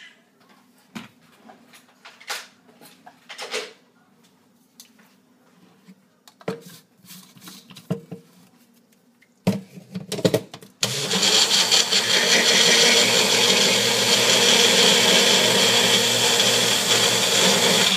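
Magic Bullet personal blender motor running loud and steady for about seven seconds, blending a protein shake, starting suddenly and cutting off at the end. Before it, small plastic clicks and a few sharp knocks as the blade cap is screwed onto the cup and the cup is pressed down onto the motor base.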